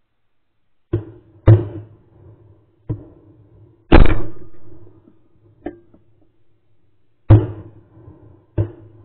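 Shotgun shots: about seven sharp blasts at uneven intervals, some loud and close, others fainter and farther off. The loudest comes about four seconds in and trails off over about a second.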